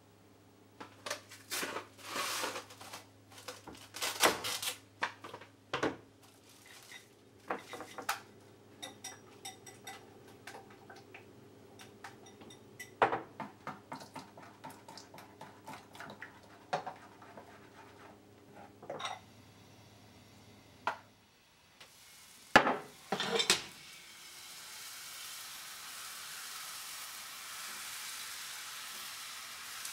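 A whisk and ladle clinking and scraping irregularly against a glass mixing bowl as buckwheat galette batter is stirred. Then come a few loud knocks of the frying pan, and after them a steady sizzle of batter cooking in the hot pan on the gas burner.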